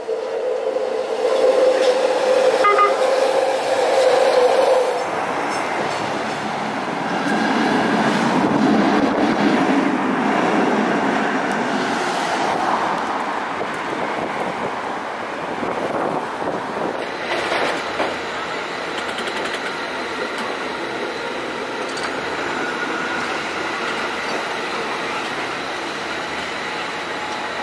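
Rail transit running by: a BART train approaches on elevated track, with a steady whine over its wheel noise for about the first five seconds, then the rumble of the cars rolling past. The later part holds the quieter street sound of a passing PCC streetcar and then a cable car.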